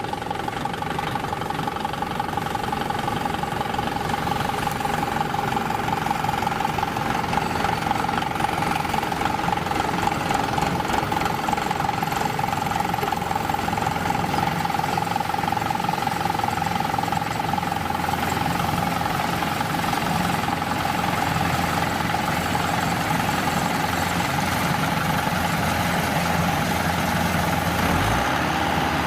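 Kubota DC-105X combine harvester running steadily: a diesel engine hum with a constant high whine from the machinery above it.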